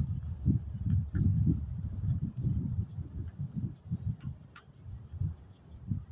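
Steady, high, rapidly pulsing insect chorus, with gusts of wind buffeting the microphone as a low, uneven rumble.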